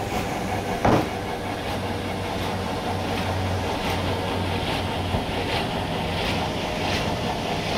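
Sawmill machinery running with a steady hum, and a single sharp knock about a second in.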